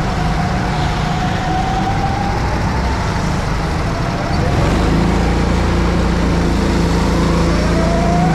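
Go-kart engines running at racing speed, their pitch rising and falling as the revs change. The sound gets louder and steadier about five seconds in.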